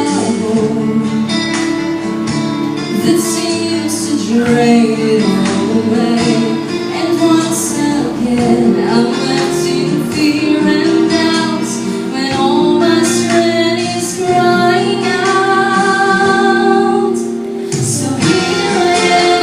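A song with a female singing voice over instrumental accompaniment, with a light plucked-string sound.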